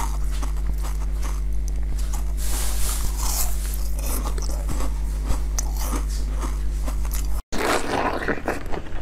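Close-miked eating: small bites and chewing of a soft yarn-ball-shaped dessert, with a steady low hum underneath. After a brief cut-out near the end come louder, crunchy bites into a green ball coated with almond flakes.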